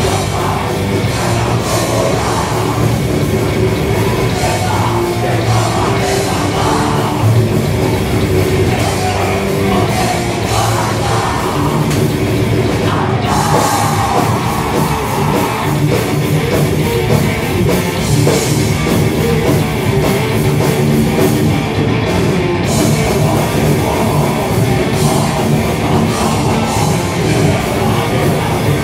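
Thrash metal band playing loud live: distorted electric guitar driven by a drum kit, a dense, unbroken wall of sound.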